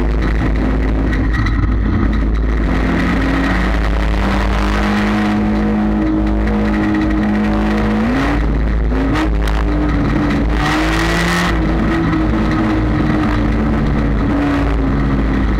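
Race car's engine heard from inside the cockpit at racing speed, loud and steady. About halfway through the revs climb sharply as it accelerates, dip briefly, climb again, then ease off slowly.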